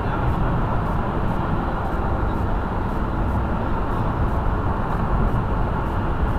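Steady road and tyre noise with the car's engine hum, heard from inside the cabin while cruising at freeway speed.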